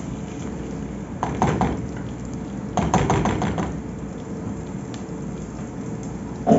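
Cookware clattering on a stovetop: two short bursts of knocks and scrapes from a utensil and pots, about a second in and again around three seconds in, over a steady low background noise.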